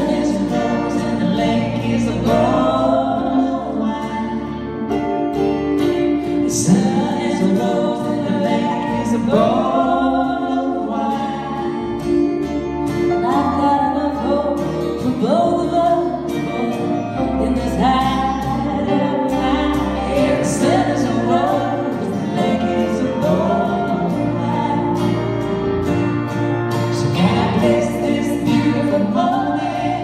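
Live band: a woman singing a slow melody into a microphone over guitar accompaniment.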